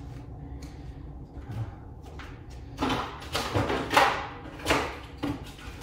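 Handling noise as things are moved about in a room: a few light knocks, then four short, loud rustling and scraping noises, the loudest about four seconds in.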